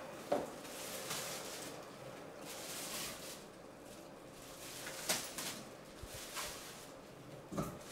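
Clear plastic wrap rustling and crinkling as a trolley speaker is pulled out of it, with a few soft handling knocks.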